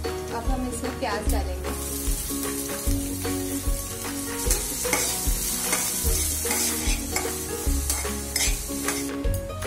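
Metal spatula stirring and scraping vegetables frying in oil in a kadhai. The sizzle grows louder about two seconds in, as chopped onions go into the hot oil, and eases near the end. Faint background music plays underneath.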